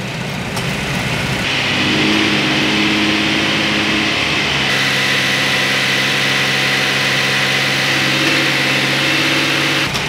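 Chevy Traverse's 3.6-litre V6 revved up from idle and held at a raised, steady engine speed, stepping up again about halfway, then dropping back right at the end. This is the rev to about 1500 RPM that spreads freshly added R134a refrigerant through the running A/C system.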